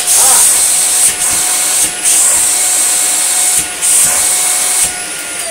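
Dyson UP15 Small Ball upright vacuum cleaner running with a steady high whine and airflow hiss that drop out briefly a few times. The reassembled machine is now working.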